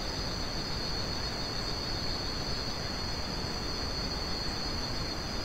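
Steady high-pitched trilling of crickets or other night insects over a constant background hiss.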